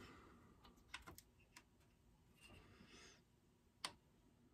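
Near silence with a few faint clicks and taps from small parts of a chainsaw being handled by hand, one sharper click near the end.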